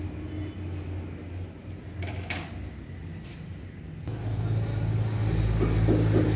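A steady low hum that grows louder about four seconds in, with one sharp tap a little past two seconds.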